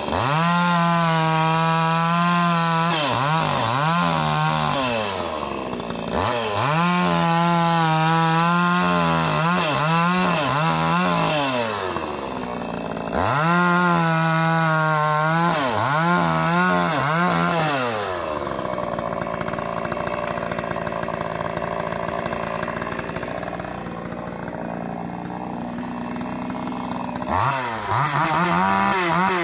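Chainsaw cutting through logs, its engine at high revs dipping and recovering again and again as the chain bites into the wood. About two-thirds of the way through it drops to a lower idle for several seconds, then revs back up near the end.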